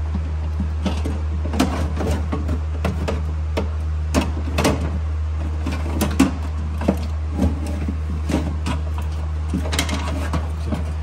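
Replacement power window regulator and motor assembly being worked into the door cavity of a Jeep Grand Cherokee: irregular clicks, knocks and scrapes of metal and plastic against the door shell, over a steady low hum.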